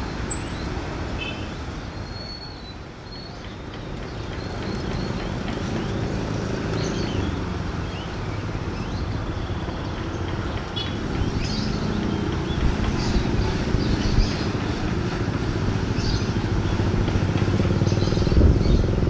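Low, steady rumble of a diesel-hauled passenger train moving away along the track, growing louder in the second half, with scattered clanks from the wheels over the rails. Birds chirp now and then over it.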